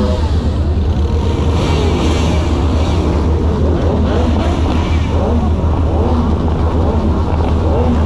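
Car engines running with a steady low rumble, with short rises in engine pitch now and then.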